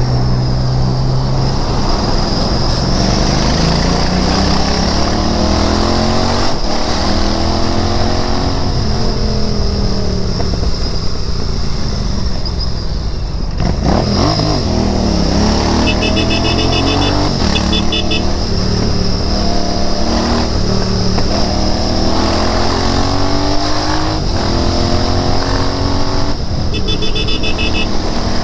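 Royal Enfield Interceptor 650's 648 cc parallel-twin engine under way, its revs rising and falling several times through the gears, with a sharp dip about halfway through as the throttle closes. A high electronic beeping sounds twice in the second half.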